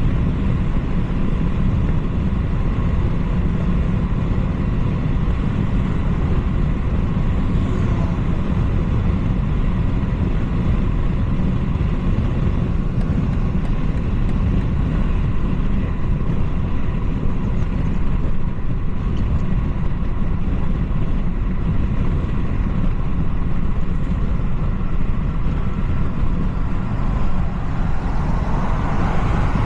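A BMW 330i (G20) being driven, with its turbocharged two-litre four-cylinder under a steady, deep rumble of road and driving noise. Near the end a higher sound rises briefly over the rumble.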